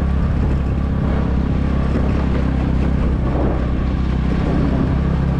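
Motor scooter engine running steadily at low speed over a rough dirt track, under a rough hiss of tyre and wind noise.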